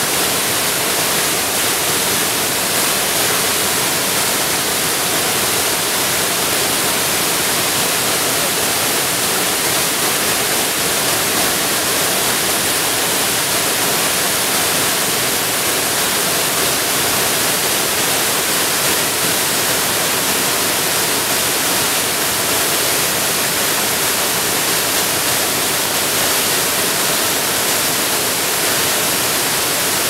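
Mountain waterfall, two strands of water pouring down a rock face into a pool, making a loud steady rush.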